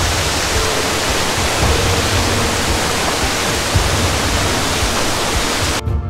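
Mountain valley stream rushing over rocks, a steady loud hiss of water that cuts off abruptly just before the end.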